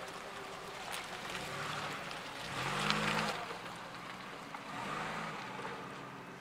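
Ford Capri driving off, its engine note rising in pitch as it accelerates about two and a half seconds in, loudest around three seconds, with a shorter, weaker engine note a couple of seconds later.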